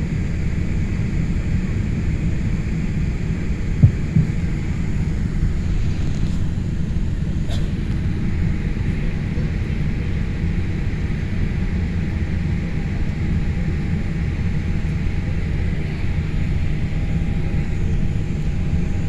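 Steady low rumble of a Boeing 787 airliner heard from inside the cabin, with a light hiss over it. A single sharp thump about four seconds in, and a faint click a few seconds later.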